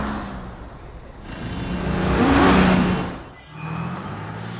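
Cartoon truck engine sound effect: a steady engine hum, with a whoosh that swells to a peak and fades as the truck drives by about halfway through.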